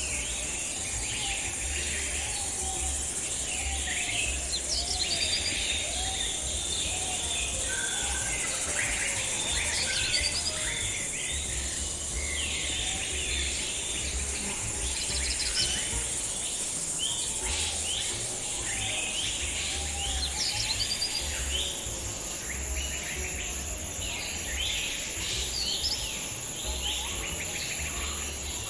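Many birds chirping and calling, short trills and whistles overlapping without a break, over a steady high-pitched insect drone.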